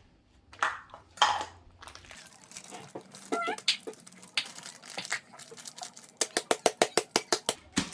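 Kitchen utensil clatter in a mixing bowl while brownie batter is being made: a few scrapes and rustles, then near the end a fast run of about a dozen sharp taps, roughly eight a second.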